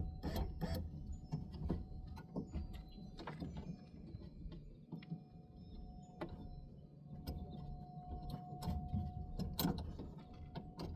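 Irregular clicks, knocks and light rattles of plastic and metal parts being handled and pried inside a car door during a window regulator replacement, with a faint steady tone that comes and goes.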